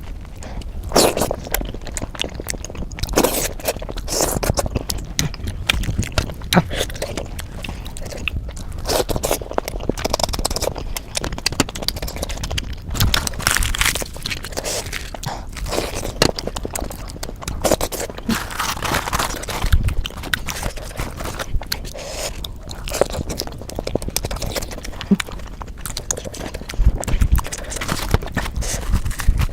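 Close-miked eating of puri and potato curry: irregular biting and chewing sounds with mouth clicks, going on throughout.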